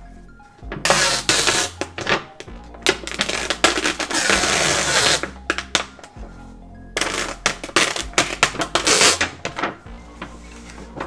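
Thin plastic anti-glare film crackling and crinkling in three loud stretches as it is peeled off an LCD monitor panel, over quiet background music.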